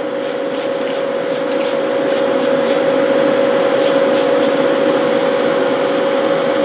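Tamiya TS-50 Mica Blue aerosol spray can hissing in a quick series of short bursts, which stop about four and a half seconds in. Under it runs the steady hum of the spray booth fans.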